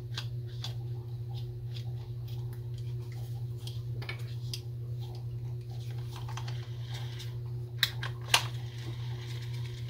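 Faint clicks and light handling noise from a Zebco One Classic spincast reel as its metal front cover is screwed back on, with two sharper clicks near the end, over a steady low hum.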